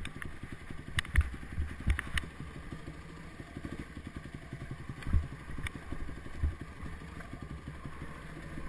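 Scorpa trial motorcycle engine running at low revs with a fast even beat while the bike descends a rocky trail, with a few sharp knocks from the bike going over stones.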